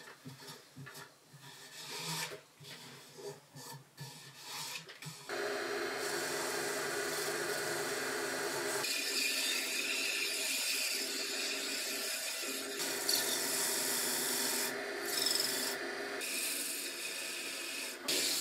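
Mesh abrasive sanding a wooden workpiece spinning on an Axminster AW355 wood lathe: a steady rubbing hiss with the lathe running. The hiss starts about five seconds in, after a few seconds of scattered rubs and knocks, and stops just before the end.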